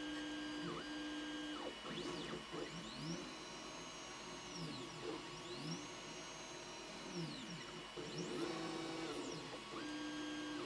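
DIY 3D printer printing, its stepper motors singing as the print head shuttles back and forth. The tones rise as each move speeds up, hold, then fall as it slows, with several moves overlapping over a steady high tone.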